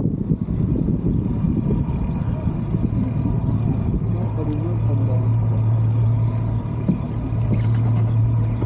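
Outboard motor on an inflatable boat running steadily, a low hum under a rumbling haze; the hum gets stronger about four seconds in.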